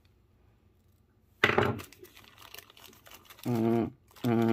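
Small plastic bag crinkling and rustling as it is handled, with a sudden crackle about a second and a half in. Near the end come two steady low hums at one pitch, a short one and then a longer one.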